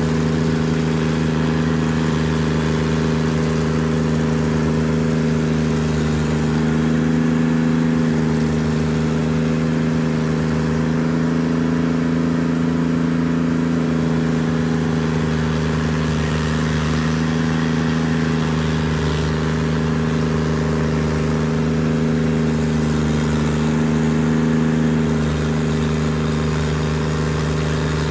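Carlton SP7015 TRX stump grinder's engine running steadily at working speed while its cutter wheel grinds a stump. The engine note sags slightly and recovers a few times as the wheel bites into the wood.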